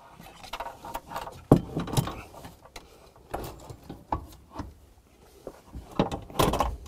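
Handling noise from a sheet-metal bracket carrying a hydraulic pump and tonneau cylinder being lowered into place in a car trunk: irregular knocks, clicks and rustling of parts and wiring, the loudest knock about a second and a half in and a cluster of knocks near the end.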